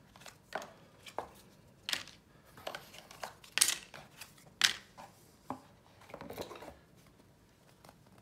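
Cardboard tokens being pressed out of a board-game punchboard by hand: a series of sharp snaps, about one a second, as each token breaks free of the board, with a brief rustle near the end.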